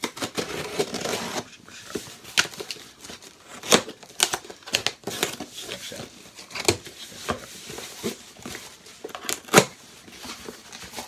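A cardboard shipping box being stabbed open and torn into, with packing tape ripping and cardboard and packing material crinkling. Sharp knocks and scrapes come throughout, the loudest a little before the end.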